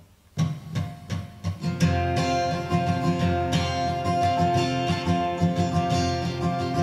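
Steel-string acoustic guitar strummed by hand: it comes in with a few separate strokes, then settles into steady strumming about two seconds in.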